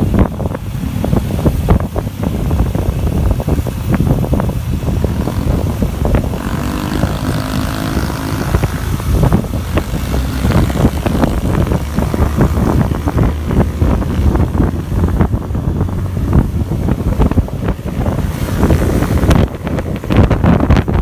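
Wind buffeting the microphone of a moving motorcycle, a constant low rumble, with the motorcycle's engine running underneath. An engine note wavers up and down for a few seconds near the middle.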